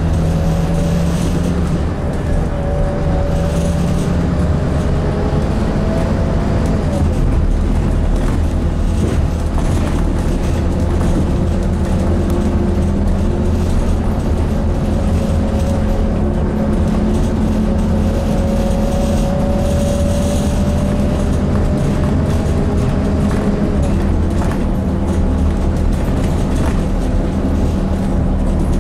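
Scania N230UD Enviro400 double-decker bus under way, heard from inside the passenger deck: the five-cylinder diesel's low drone with a whine that slides down in pitch over the first few seconds and climbs again a little past the halfway point.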